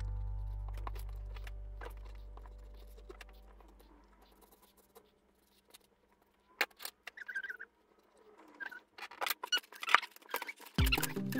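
Background music's held chord fading out over about four seconds, then quiet with scattered small scratches and taps from handling the colouring page, and music starting again near the end.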